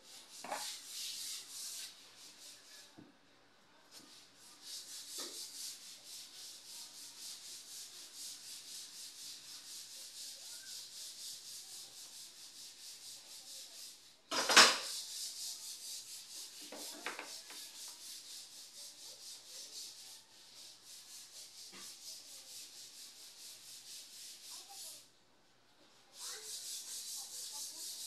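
Quick, regular back-and-forth rubbing strokes of a hand tool on wood, like sanding, with two short pauses. One sharp knock about halfway through is the loudest moment.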